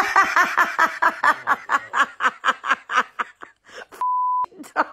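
A person laughing hard in quick, evenly repeated bursts, about four a second, fading a little toward the end. About four seconds in comes one short, steady beep tone, a censor bleep over a word, followed by more voice.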